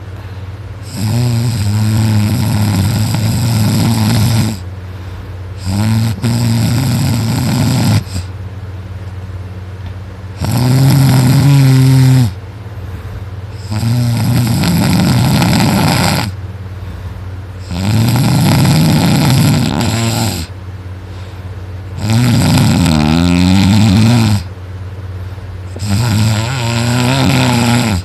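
A person snoring very loud in deep sleep. Seven long snores about every four seconds, each lasting around two seconds, with a wavering pitch.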